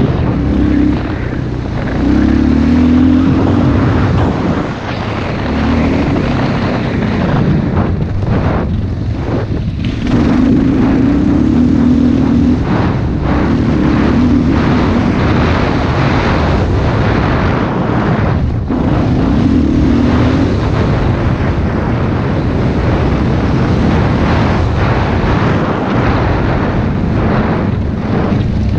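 Motocross bike engine revving hard and dropping back as the throttle is opened and shut around the track, with wind rushing over the bike-mounted GoPro's microphone. The revs fall away briefly about nine seconds in and again a little past halfway.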